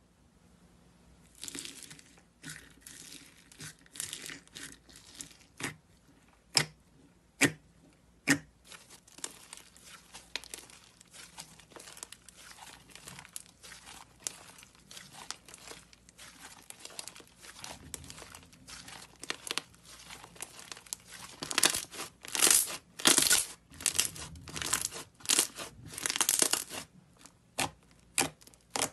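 White fluffy slime with small foam beads being stretched and pressed by hand: sticky crackling and tearing, with single sharp pops in the first third and a louder, denser run of crackling in the last third.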